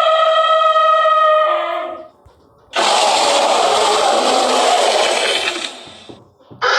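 Dinosaur sound effects: a long, steady call with a clear pitch and rich overtones fades out about two seconds in. After a short pause comes a harsh, noisy roar lasting about three seconds.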